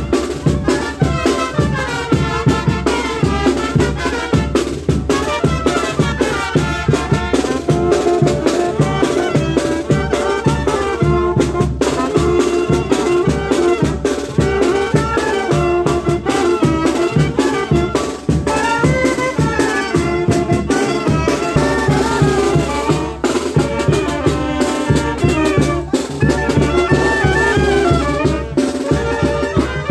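Live band music: brass instruments play a melody over a bass drum and percussion keeping a steady beat.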